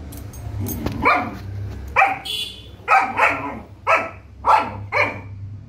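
Long-coat German Shepherd puppy barking: a string of about seven short barks, one or two a second.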